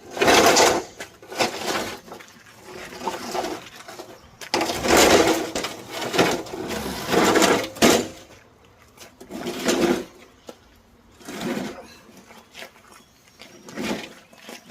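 Cub Cadet LT1050 mower deck being dragged and shoved into place under the riding mower: a series of irregular scraping and clattering bursts, the longest about three seconds, with short pauses between pushes.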